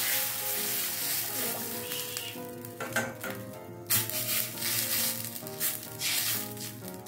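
Coconut milk sizzling as it is poured into hot oil in a stainless steel wok, the hiss fading over the first two seconds or so. Then a wooden spatula stirs and scrapes against the pan in several short strokes, over steady background music.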